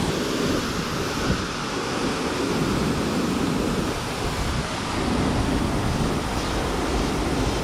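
Steady rushing noise of wind and water, with no single event standing out.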